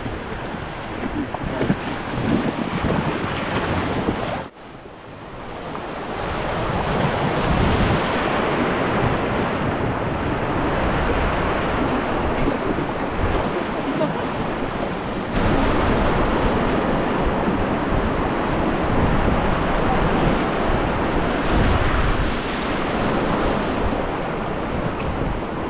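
River water rushing through white-water rapids around a raft, with wind buffeting the microphone. The noise cuts out sharply about four seconds in, then swells back.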